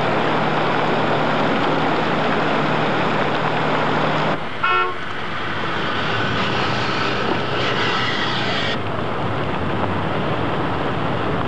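Floodwater rushing loudly, with a steady low hum under it, cut off suddenly about four seconds in. Just after, a car horn toots once briefly, then a steady rushing noise of water and traffic carries on.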